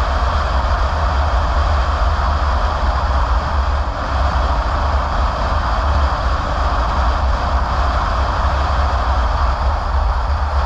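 Car driving at a steady speed: a constant low rumble with a steady hiss of road noise, without change.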